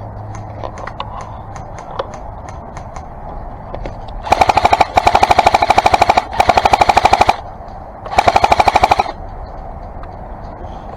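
Matrix M4 LMG airsoft electric gun firing four bursts on full auto, a fast run of clacks over the buzz of its motor and gearbox. The first three bursts come almost back to back about four seconds in, and the fourth follows after a pause of about a second, as suppressive fire.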